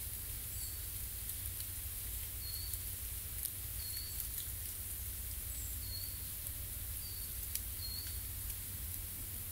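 Small birds calling with short, high, thin chirps every second or two, over a steady low rumble. A few sharp ticks like water drops falling from branches come about three and a half and seven and a half seconds in.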